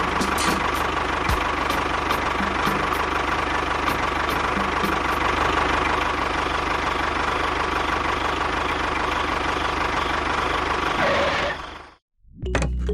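A small motor running steadily with regular ticking, which stops near the end. Music starts right after.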